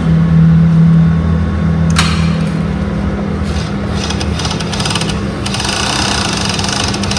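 Yamata industrial four-thread overlock (serger) machine: its motor hums steadily, and from about two seconds in it sews a test seam through fabric with a fast, even chatter of needle and looper strokes, just after its stitch width has been adjusted.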